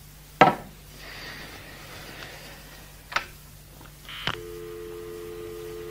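Telephone sound effects: a loud click as the handset is picked up, two more clicks of the receiver cradle, then a steady two-note dial tone from about four and a half seconds in.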